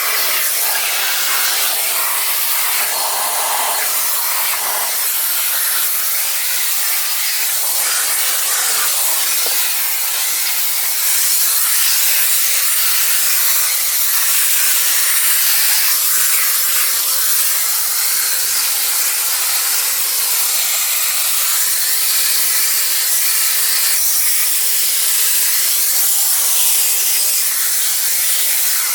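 Electrolux Ergospace canister vacuum cleaner running steadily while vacuuming a car: an even hiss of rushing air over a steady motor tone, getting a little louder about eleven seconds in.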